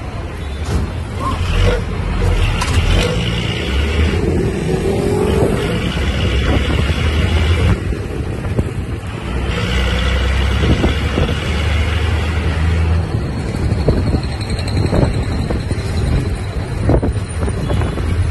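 Engine and road noise of a moving bus, heard from inside by the window: a steady low rumble that eases briefly about eight seconds in.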